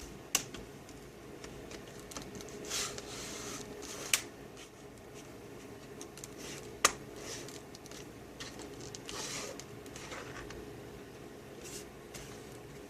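Plastic screen bezel of a Dell Inspiron 15-3521 laptop being pressed down around its edges, its clips snapping into place: three sharp clicks, about a second in, around four seconds in and near seven seconds, between softer rubbing and handling of the plastic.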